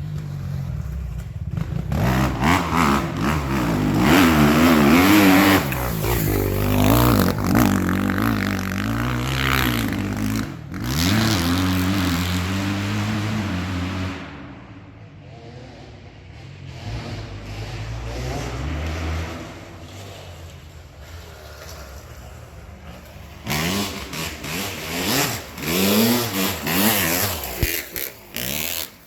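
Kawasaki 250 motocross bike engine revving hard, its pitch climbing and dropping as the throttle opens and closes. Just under halfway it falls back to a quieter, lower running for several seconds, then revs up hard again near the end.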